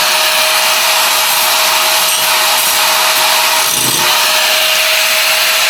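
Angle grinder grinding steel exhaust metal: a steady high grinding hiss over a constant motor whine, held without let-up.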